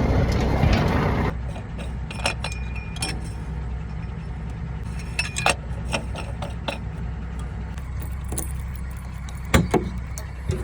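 A vehicle's engine running steadily with a low hum, with scattered clinks and rattles. A louder noise stops suddenly just over a second in, after which the hum is quieter.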